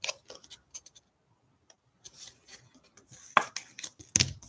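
Trading cards and card packaging being handled: scratchy rubbing with scattered clicks, and a couple of sharper knocks a little after three seconds and again just after four seconds.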